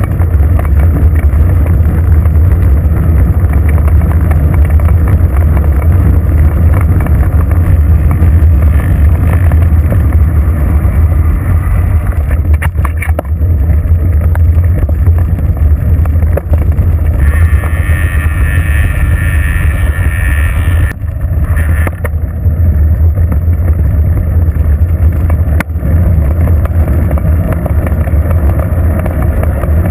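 Wind buffeting the microphone of a bicycle-mounted action camera at riding speed: a loud, steady low rumble. About two-thirds of the way through, a higher whirring hiss joins it for about four seconds, then drops away.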